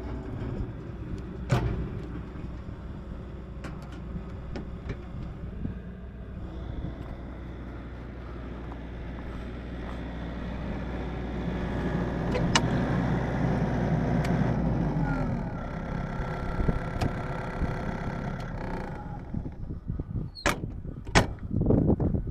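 A machine runs with a steady low hum, then winds down with a falling pitch about fifteen seconds in and stops. Near the end come a few sharp knocks.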